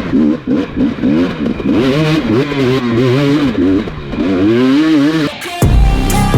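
Dirt bike engine revved up and down over and over, the throttle blipped in quick rises and falls. About five seconds in, music with a heavy bass comes in.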